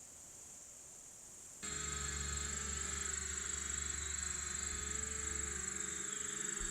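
Holy Stone HS360 quadcopter's motors buzzing, a steady whine that wavers slightly in pitch, starting suddenly about one and a half seconds in. Before that there is only a faint high hiss.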